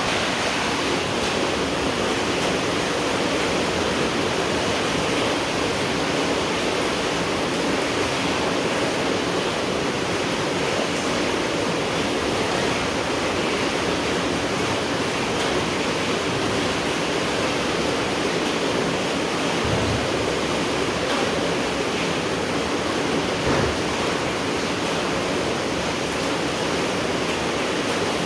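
Steady rain falling at night, an even continuous hiss with no change in strength. A couple of soft low thuds stand out about two-thirds of the way through.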